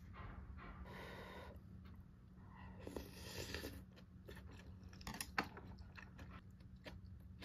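Close-up chewing of crunchy food, with small clicks throughout and one sharp click a little past five seconds in.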